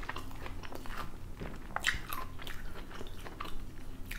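A woman chewing a mouthful of McDonald's double quarter pounder with bacon close to a clip-on microphone, as a run of small, irregular mouth clicks.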